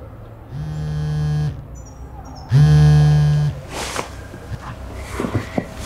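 Mobile phone vibrating on a surface, buzzing in pulses about a second long with a second's gap between, the second pulse louder, followed by a few quieter scattered sounds.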